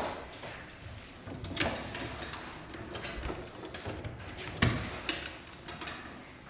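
A few sharp knocks and clanks of garage door hardware being handled and fitted by hand, with a low rustle of handling between them. The loudest two knocks come close together near the five-second mark.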